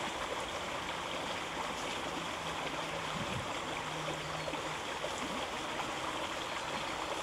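Floodwater, fed by a burst sewer overflowing from a manhole, running steadily across a footpath in an even rush.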